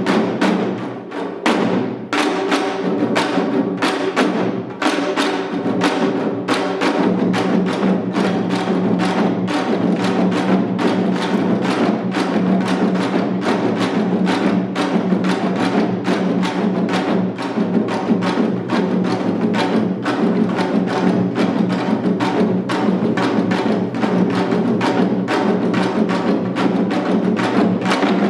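Janggu, Korean hourglass drums, played in seated seoljanggu style: a fast, dense, unbroken rhythm of sharp stick strokes over the deeper beat of the drum's other head.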